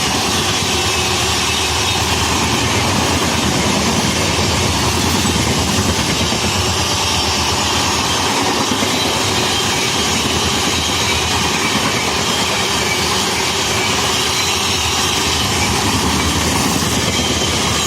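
Train of parcel coaches hauled by a WAG-9 electric locomotive passing at high speed: a loud, steady rush of wheel and rail noise that holds even throughout.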